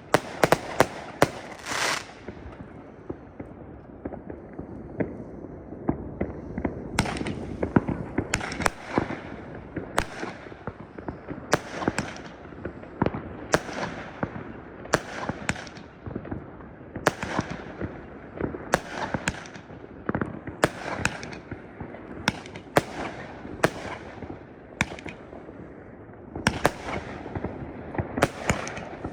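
Fireworks going off in a dense run of sharp bangs, about one or two a second, over a constant rumble of more distant explosions. A hissing crackle comes in the first couple of seconds.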